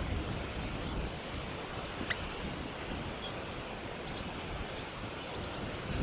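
Steady wind noise on the microphone, with a few brief high bird chirps about two seconds in and one more a second later.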